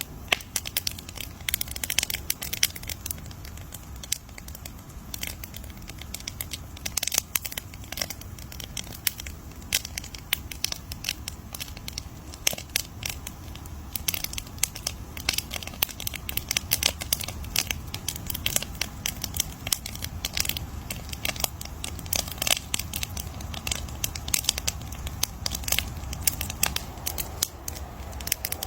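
Campfire crackling, with dense irregular pops and snaps over a low rumble of burning wood.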